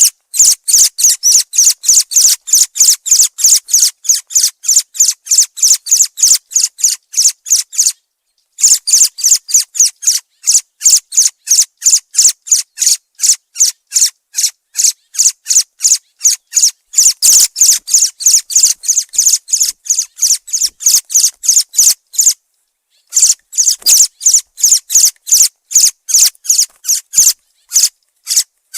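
Thrush calling: a long, even series of short, high chirps at about three a second, broken by a few brief pauses.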